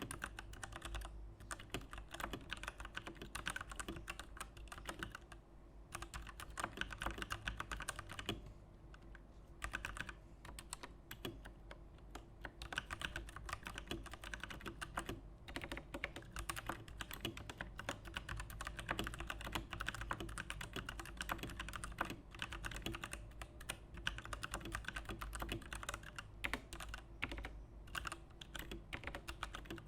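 Fast continuous typing on a Digital Alliance Meca Warrior X RGB mechanical keyboard with PBT doubleshot keycaps: a dense run of key clacks, with short pauses about five and nine seconds in.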